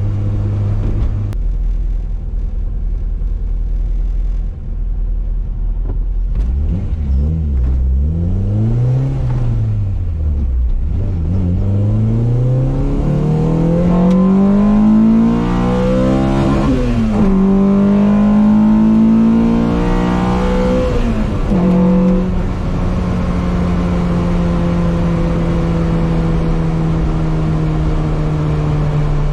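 Honda Civic's B18C 1.8-litre DOHC VTEC four-cylinder heard from inside the cabin under acceleration. After a few short rises and falls in revs, it makes two long pulls rising in pitch, each cut off by a sudden drop at the upshift, about halfway through and again a few seconds later. It then settles into a steady cruise, its note sinking slowly.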